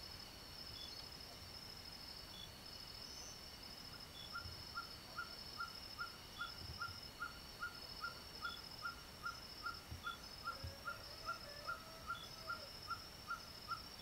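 Steady chirping of insects, joined about four seconds in by an animal giving a long series of short, evenly spaced calls, about two and a half a second.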